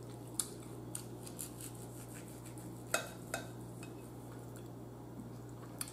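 Knife and fork clinking and scraping against a bowl as a T-bone steak is cut. A few sharp clicks are spread out, the loudest about three seconds in, over a low steady hum.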